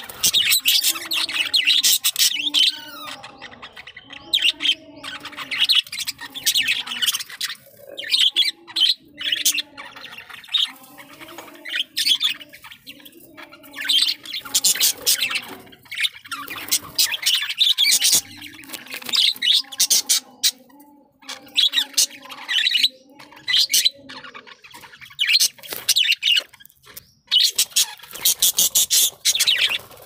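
A flock of budgerigars chattering and chirping, in dense bursts of rapid high notes that come and go every second or two.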